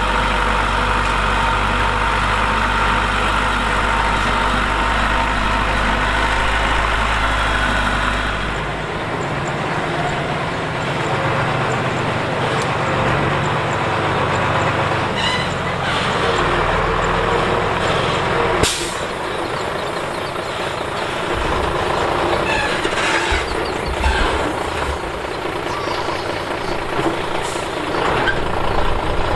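Heavy diesel engines of earthmoving machinery running. The engine note changes about eight seconds in, and there is a short sharp noise about two-thirds of the way through.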